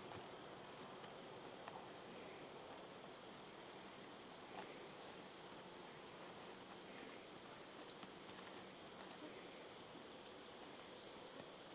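Faint outdoor ambience: a steady high-pitched insect chorus, crickets or the like, with a few soft scattered clicks.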